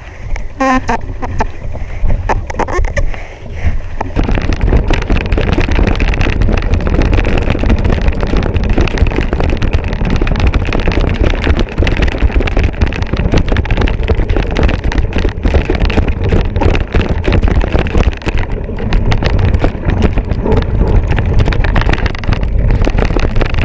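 Wind rushing over the microphone with the clatter and rattle of a mountain bike ridden fast over rough ground. It gets louder about four seconds in.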